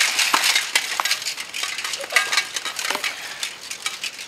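Melee clatter: padded weapons striking shields and armour in rapid, irregular knocks, with metal armour clinking.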